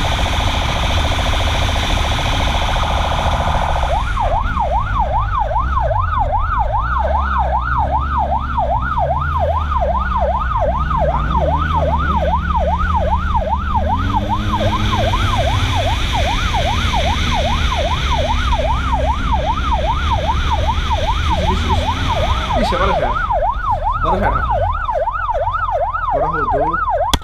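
Police motorcycle's electronic siren, heard from the rider's helmet camera: a rougher, faster wail for the first few seconds, then a rapid yelp sweeping up and down about three times a second. Engine and wind rumble run underneath.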